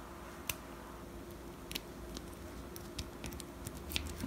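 A USB keyboard being handled and plugged in: a few faint, irregularly spaced clicks and knocks with light rustling.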